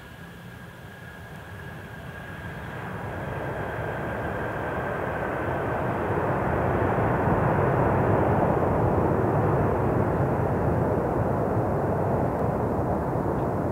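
Airbus A340-600 airliner's four Rolls-Royce Trent 500 jet engines during the landing rollout just after touchdown. The noise swells over about six seconds and then holds loud. A faint high whine fades out early on.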